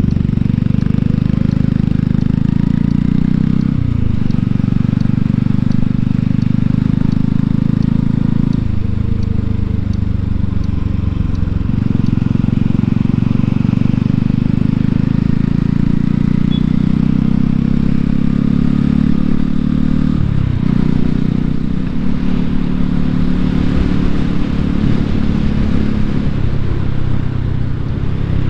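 Honda Cross Cub 110's small air-cooled single-cylinder engine running under way, heard from the bike. Its note steps to a new pitch several times.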